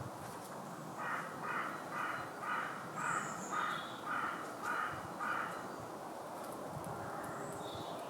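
A bird calling in a quick regular series, about nine calls at roughly two a second, which then stops, with a few faint high chirps later on.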